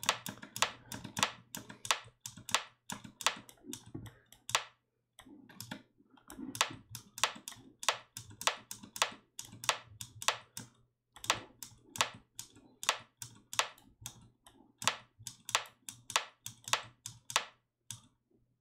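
A repeating pattern of short, sharp synthesized rimshot and percussion hits made by FM synthesis in Ableton's Operator, about three a second with a few brief pauses. They play through a dynamic EQ being set to cut their low ringing tail.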